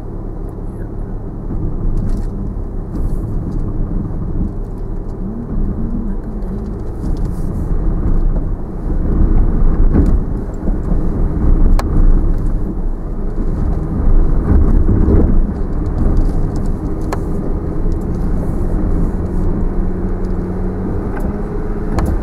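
Land Rover Discovery 4 crawling over a rutted dirt track in low range, heard from inside the cabin: a steady low engine and drivetrain rumble that swells in the middle, with a few sharp knocks from the body and suspension as it goes over the ruts.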